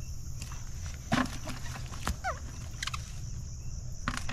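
Steady chirring of insects, with rustling and a thump about a second in as a wet cast net is dragged out of a heap of mud and weeds, and a short falling call around two seconds in.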